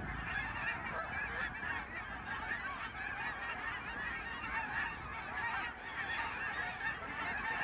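A large flock of Canada geese honking all at once, a dense, continuous chorus of overlapping calls with no single bird standing out.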